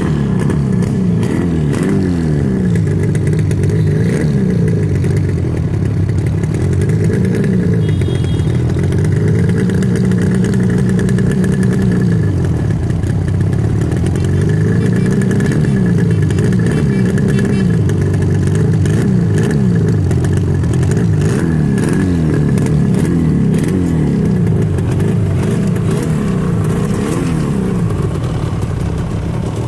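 Low-torque Rajdoot Yamaha RD350's two-stroke parallel-twin engine running on the stand and revved up and down over and over, the pitch rising and falling every few seconds.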